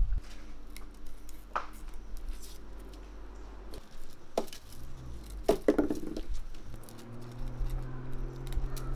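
Small knife peeling garlic cloves by hand: light scraping of the blade on the papery skin, with a few sharp clicks and taps.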